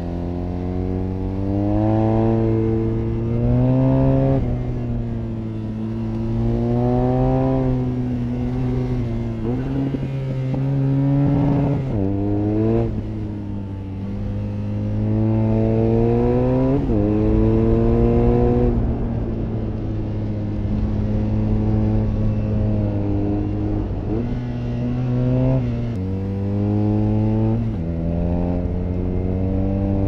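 BMW R nineT's 1170 cc air/oil-cooled boxer twin engine under way, its revs climbing and dropping back over and over, with a few sharp jumps in pitch.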